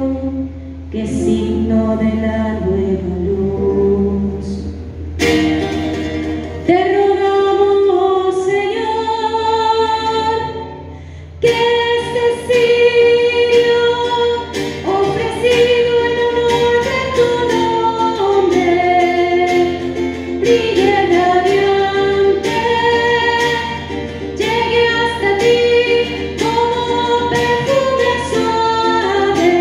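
Sung music: a woman's voice singing a slow melody in sustained phrases over a steady low accompaniment.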